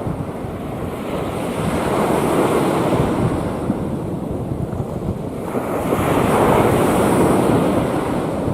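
Rough sea waves breaking and washing in, swelling twice about four seconds apart, with wind buffeting the microphone.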